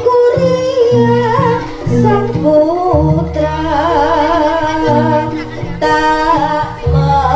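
Live Javanese jaranan ensemble music: a high, wavering, ornamented lead melody over held steady tones and a repeating pattern of low drum strokes.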